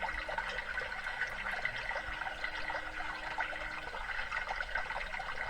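Small waterfall splashing and trickling steadily into a pond.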